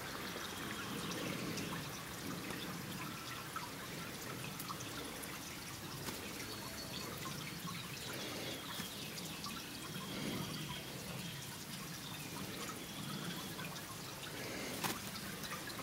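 Faint, steady outdoor background hiss, with a few faint, short, high chirps scattered through it and a single sharp click near the end.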